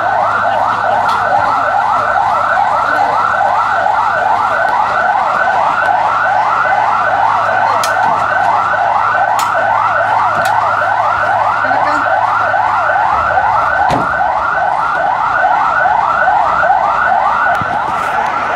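Ambulance siren in a rapid yelp, about three quick rising sweeps a second, loud and unbroken.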